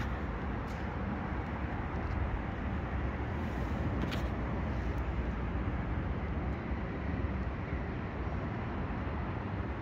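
Steady outdoor background noise with a deep rumble, with one faint click about four seconds in.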